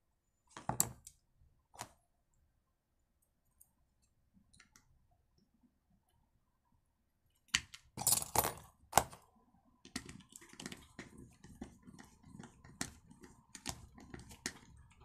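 A few light clicks, a quiet stretch, then clatter about halfway through and a run of quick small clicks and scrapes: hand tools and the plastic recoil starter of a chainsaw being handled, with a screwdriver driving the centre screw that holds the starter pulley over a split lock washer.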